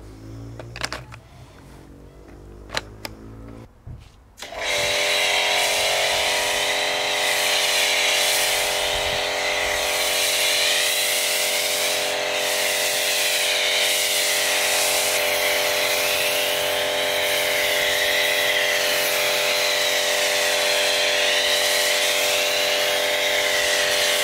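A few sharp clicks as a foam cannon is fitted to a pressure-washer lance. About four and a half seconds in, the electric pressure washer starts and runs steadily: a motor hum with a spray hiss over it as snow foam is sprayed onto the car.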